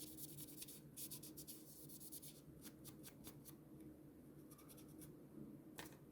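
Faint rubbing and scratching of a cloth wiping an iPhone 4S's glass back cover, in quick short strokes that thin out after about three and a half seconds.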